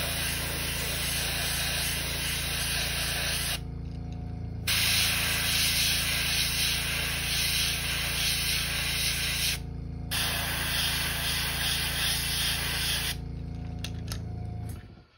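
Airbrush hissing as it sprays paint onto a crankbait lure. The air cuts off briefly twice and stops about two seconds before the end. A steady low hum runs underneath and stops near the end.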